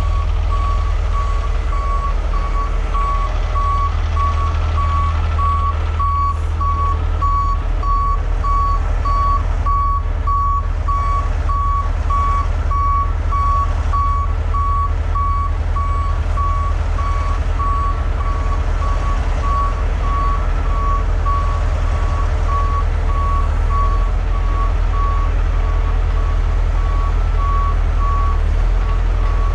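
A heavy tow truck's back-up alarm beeping at an even, steady rate over the low, steady running of a heavy diesel truck engine.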